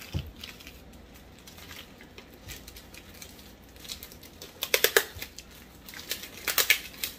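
Shipping tape being picked at and peeled off a paper-wrapped bundle of comics: two short bursts of sharp crackling, one a little before 5 s in and a louder one about 6.5 s in.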